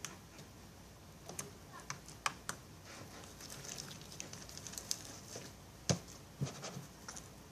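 Freshly kneaded clear slime being stretched and squeezed in the hands, giving irregular sharp clicks and small crackles, the loudest about six seconds in.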